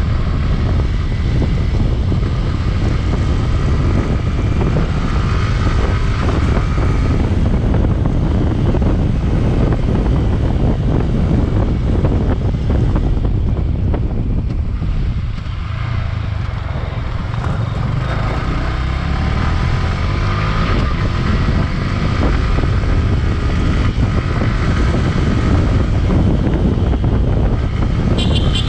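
Yamaha R15 V3's single-cylinder engine running on the move, under heavy wind buffeting on the microphone. The engine pitch rises and falls with the throttle, drops away about halfway through, then builds again.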